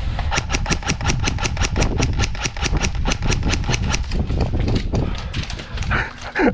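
An airsoft gun fired in a rapid string of shots, about five a second for roughly four and a half seconds, over low rumbling movement noise. A louder, brief noise comes near the end.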